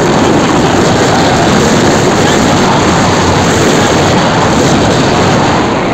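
Loud, steady wind rush on the phone's microphone while riding on a moving motorbike, with the bike running beneath it.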